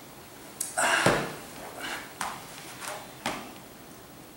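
A person lying back onto a bed of nails: a few short thumps with clothing rustle, the loudest about a second in.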